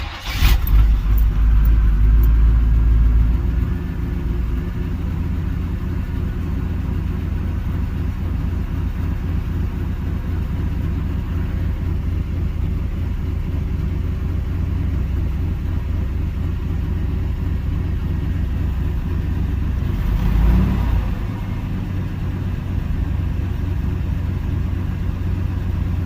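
Carbureted 305 H.O. small-block Chevy V8 firing at once on a warm restart after sitting shut off for about an hour. It revs high for a few seconds, then settles to a steady idle, with a brief rev about twenty seconds in.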